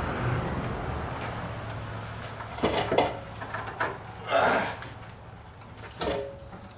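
Gear oil draining out of a truck transmission into a metal drain pan, followed by a few short metal knocks and scrapes against the pan and parts.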